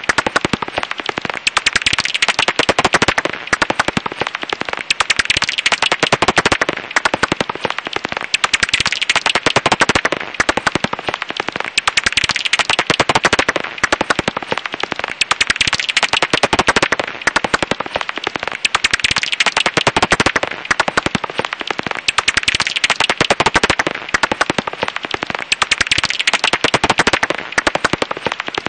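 Japanese house bat (Pipistrellus abramus) calls: a dense, rapid stream of clicks, broken by short pauses every second or few seconds.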